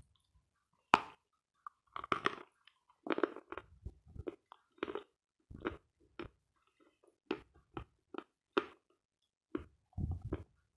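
A bite into a chunk of dense, dry edible chalk ("Sloyka") with a sharp crack about a second in. It is followed by a run of repeated crunching chews as the chalk is ground down.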